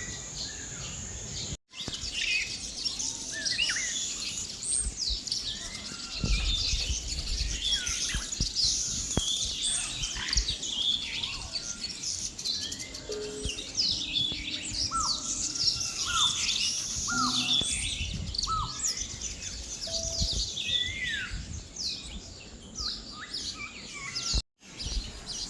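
Many birds chirping and calling at once, a dense tangle of short, high chirps and whistles, with a few lower calls that fall in pitch in the middle. There are bouts of low rumble, and the sound cuts out briefly twice.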